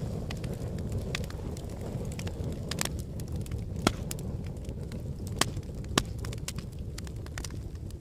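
Fire crackling in a fireplace: a steady low rumble of burning with scattered sharp pops and snaps, three of them louder in the second half.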